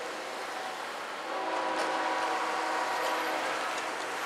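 Freight locomotive's multi-chime air horn blowing for a grade crossing: the tail of one blast, then a long steady blast of about two seconds starting just over a second in.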